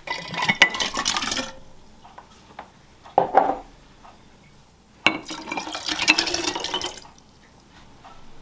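Home-canned golden beets and their juice poured into a half-gallon glass mason jar of vinegar and sugar, splashing and clinking against the glass. It comes in two pours: one at the start and one about five seconds in, with a single knock between them.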